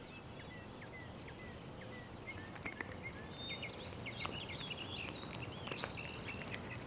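Several small birds chirping and calling over a faint, steady outdoor background, with a few scattered faint clicks.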